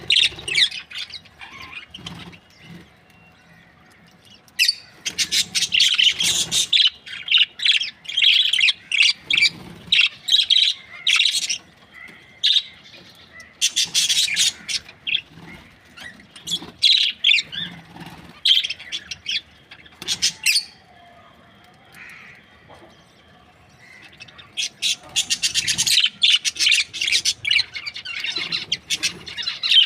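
Budgerigars chattering and chirping in rapid, scratchy bouts, with a few quieter pauses between them.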